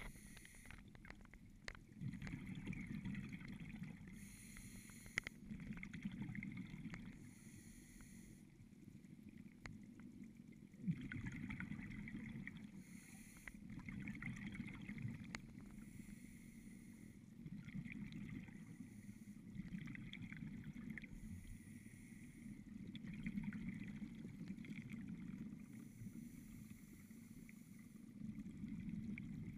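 Scuba diver breathing underwater through a regulator: a short hiss of inhalation every four to five seconds, each followed by a rush of exhaled bubbles.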